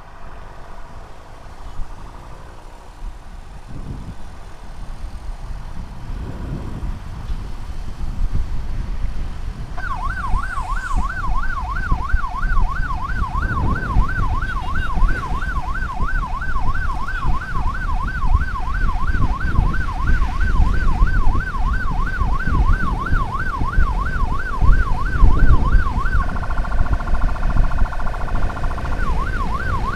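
Emergency vehicle siren over rumbling road and wind noise from a moving vehicle. About ten seconds in the siren starts a fast warble of about three cycles a second. Near the end it switches briefly to a steady tone, then the warble returns.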